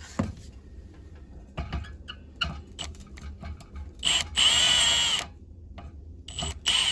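Multimeter continuity beeper sounding twice, a steady high beep of about a second each time the probes bridge the dump switch's two prongs: the switch is conducting with its ball seated. A few light clicks of handling come first.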